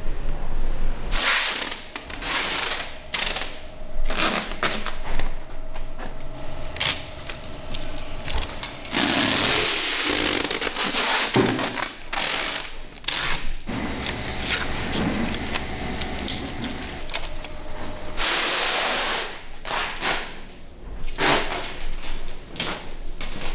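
Workshop noise from handling cast cultured-marble bathtubs and moulds: scattered knocks and clatter, two longer stretches of hissing, and a faint steady hum in between.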